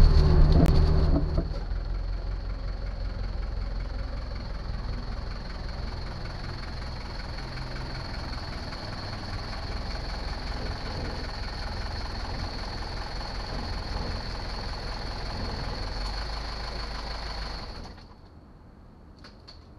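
Mercedes-Benz 240D's four-cylinder diesel engine idling steadily with a thin high whine over it, then shut off near the end. It opens with about a second and a half of louder driving noise inside the car's cabin.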